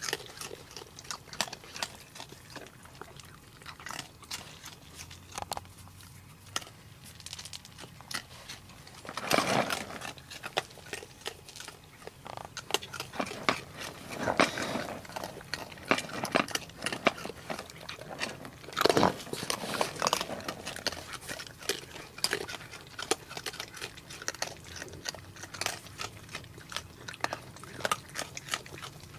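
Young raccoons moving about and chewing food, a steady run of small clicks and crackles, with three louder noisy bursts, about a third, halfway and two-thirds of the way through.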